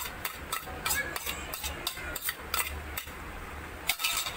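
Beaten egg cooking in hot oil in a non-stick pan on a gas stove, with irregular crackling pops and light clinks, about three or four a second.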